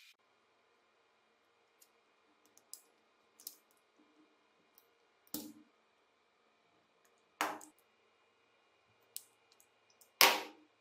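Sharp clicks and knocks of hard plastic as an electrical plug is handled and worked on. There are scattered light ticks, three louder knocks about two seconds apart, and the loudest comes near the end.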